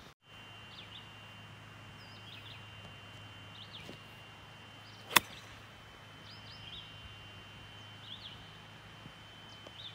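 A golf iron strikes the ball once, a single sharp click about five seconds in, on an approach shot. Birds chirp in short bursts throughout.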